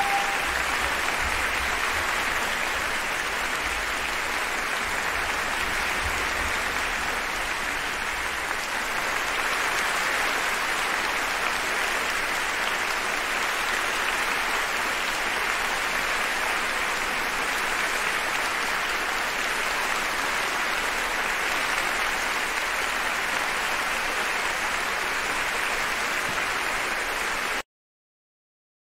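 Concert-hall audience applauding, a steady even clapping that cuts off suddenly near the end.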